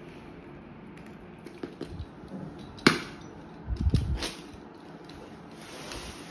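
Utility knife working on a flat cardboard box: one sharp click about three seconds in, then a few low knocks against the cardboard and a scratchy sliding cut through the box edge near the end.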